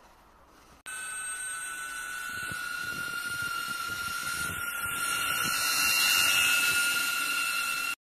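DJI Avata FPV drone in flight: a steady rushing hiss with a high, steady whine. It starts abruptly about a second in and slowly grows louder.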